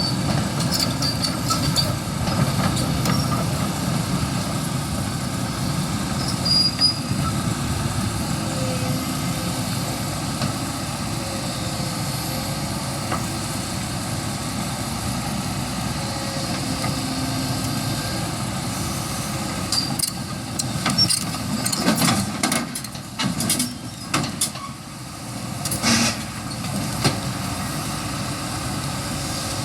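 Excavator's diesel engine running steadily, with a series of sharp knocks and clanks in the last third.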